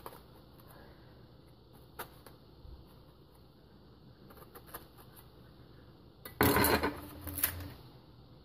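A few faint taps of a kitchen knife scoring a pomegranate's rind, then about six seconds in a loud metal clatter with a short ringing tone: the knife set down in a stainless steel sink.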